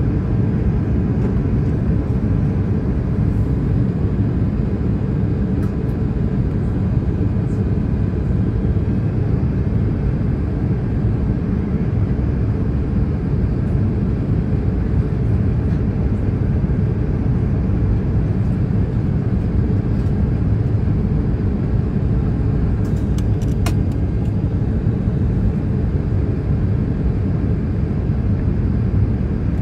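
Steady low rumble of an Airbus A380's engines and airflow heard inside the passenger cabin during the descent to land.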